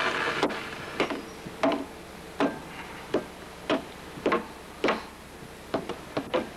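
A series of sharp, separate knocks or clicks, a little uneven in spacing, about one or two a second.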